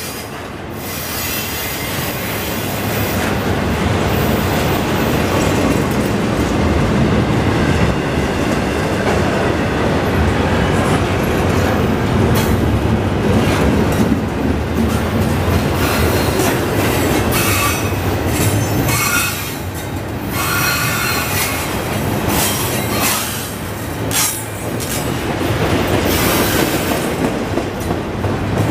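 Canadian Pacific double-stack container train rolling past: a steady rumble of steel wheels on rail, with irregular clicks and clanks from the wheels and cars. A few brief high wheel squeals come about two-thirds of the way through.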